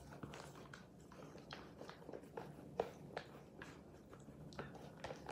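Six-week-old Labrador puppy chewing and tugging at the corner of a paper legal pad: faint, irregular paper crinkles and small crackling clicks, with one sharper click near the middle.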